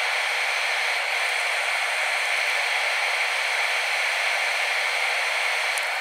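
Steady rushing cabin noise inside an Airbus A320 during taxi: the engines at low power and the air conditioning, an even hiss with no distinct events.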